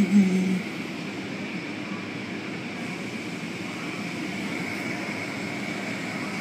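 Automatic car wash heard from inside the car: a steady rush of water spray and spinning cloth brushes washing over the body, with a steady high machine whine. Two short, loud low sounds come right at the start.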